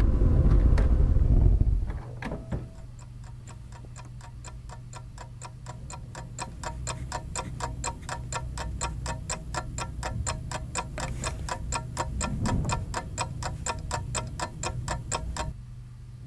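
Rapid, even mechanical ticking, about five ticks a second, over a low steady hum; it stops shortly before the end. A loud low rumble fills the first two seconds.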